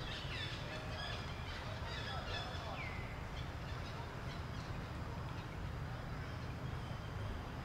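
A few short, high animal calls falling in pitch, over a steady low rumble of outdoor background noise.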